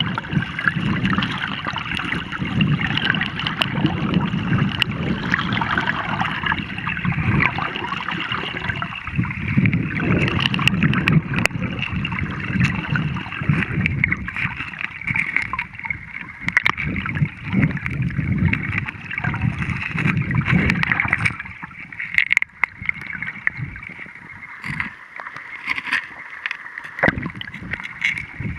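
Shallow river riffle: water rushing and gurgling over stones, with scattered small splashes. About 21 seconds in it becomes quieter and the low rumble falls away.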